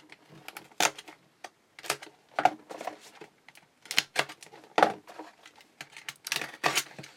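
Irregular sharp clicks and taps of trading-card boxes and foil packs being handled and set down on a table, one or two a second.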